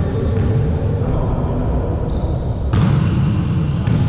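Volleyball being played in a large sports hall: one sharp ball hit about two and a half seconds in, with short high squeaks over the steady noise of the hall.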